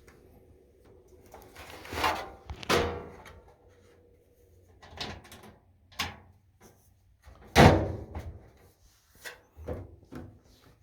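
A run of separate knocks and clunks as a Samsung front-load dryer's door and panels are handled. Two knocks come about two seconds in, a few lighter ones follow, and the loudest comes about three-quarters of the way through.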